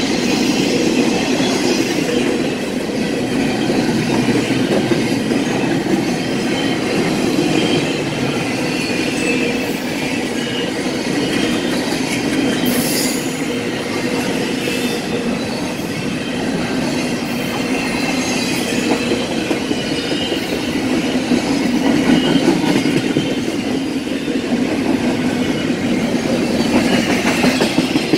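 Double-stack intermodal well cars rolling past at close range: a steady rumble of steel wheels on the rails with clacking over the joints and a thin wheel squeal at times.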